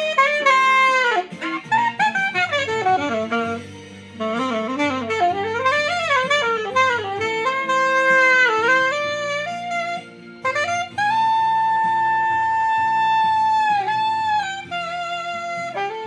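Saxophone playing a slow ballad melody with scooping, bending notes and a long held note in the second half, over soft sustained low accompaniment chords.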